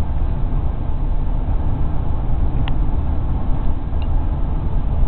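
Steady low rumble of road and engine noise inside a moving car's cabin, with two faint clicks near the middle.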